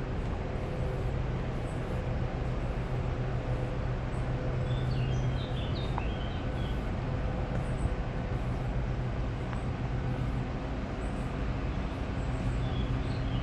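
Steady low mechanical rumble of vehicles with a constant hum, with a few short bird chirps about five seconds in and again near the end.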